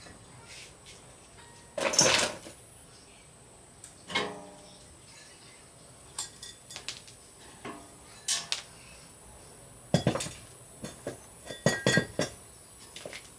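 Metal tools and parts clinking and clanking as they are handled and set down: sharp knocks at irregular intervals, some ringing briefly, with a quick cluster of clinks near the end.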